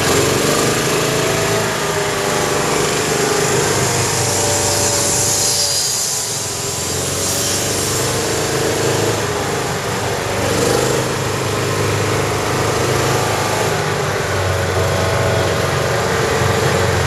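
Off-road buggy's engine running steadily while driving, heard from on board, its pitch shifting slightly up and down with the throttle and easing briefly about six seconds in.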